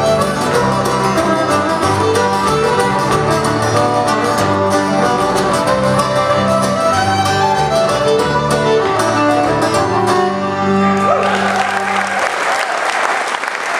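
Fiddle playing the instrumental ending of a folk song over strummed acoustic guitars and electric bass. The music stops about eleven seconds in and the audience applauds.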